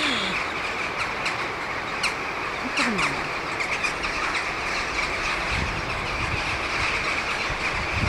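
A huge flock of crows calling all at once, a dense, continuous din of overlapping calls. A low rumble joins about halfway through.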